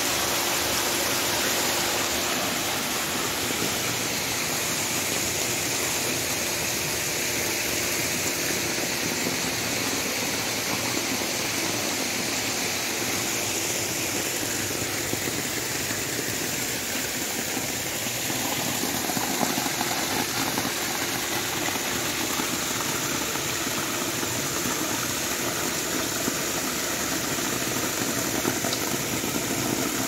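Steady rush of water, falling into a koi pond and circulating through a pool, with a low steady hum beneath it.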